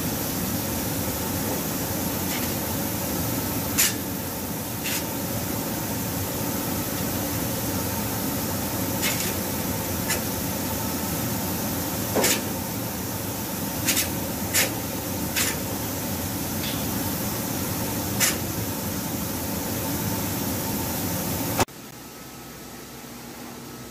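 Steady rushing air noise from a powder-coating spray booth: the powder gun's air spray and the booth's extraction airflow, with about nine sharp clicks scattered through it. Near the end the noise drops abruptly to a quieter steady hum.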